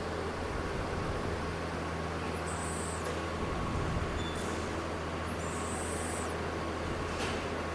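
Steady low machinery hum and noise from a diesel locomotive shed, with a couple of brief faint high hisses.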